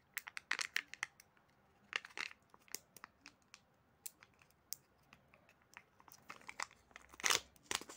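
Foil seal of a Kinder Joy treat cup being peeled off by hand, crinkling and crackling in irregular snaps, with a louder crackle near the end.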